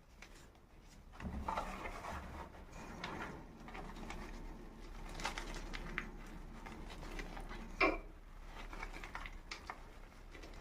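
Block of gym chalk (magnesium carbonate) being crunched and crumbled, with many small crackles and one sharper crack near the end.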